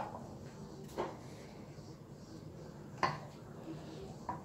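Three brief, light knocks of kitchen utensils being handled at the worktop, about a second in, about three seconds in and near the end, as minced meat is spooned out with a wooden spoon.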